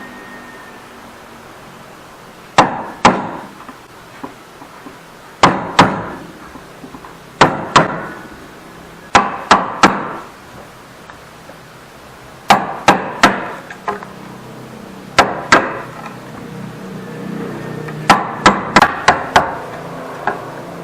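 Wood chisel being struck to chop out a dado joint by hand: sharp blows in groups of two or three every couple of seconds, with a quicker run of about five blows near the end.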